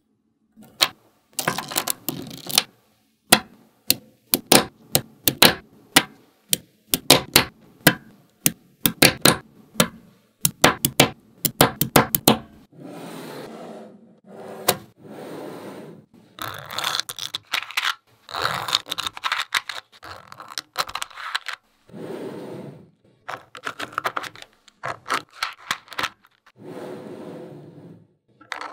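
Small magnetic balls clicking sharply as they snap together one after another, in quick runs of clicks. About halfway through this gives way to longer stretches of rattling and scraping as clusters of balls are rolled and slid together, still with clicks among them.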